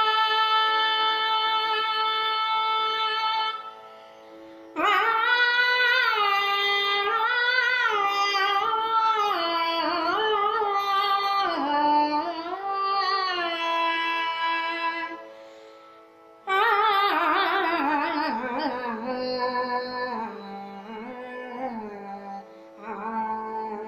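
A woman singing a Kannada devotional song in Carnatic style over a faint steady drone. She holds one long note, then sings winding, ornamented runs, with brief pauses about four and fifteen seconds in.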